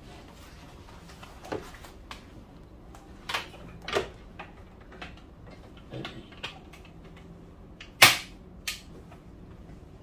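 Scattered knocks and clicks of a mains plug and its cable being handled and pushed into a power strip. One much louder sharp click comes about eight seconds in, with a lighter one just after.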